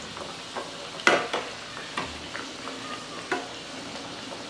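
Maida-dough katori frying in hot oil on low flame around a steel bowl mould: steady sizzling and bubbling. A metal slotted spoon ladling oil over it makes several light clinks against the pan, the loudest about a second in.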